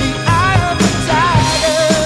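Background music with a steady drum beat and a wavering lead melody line.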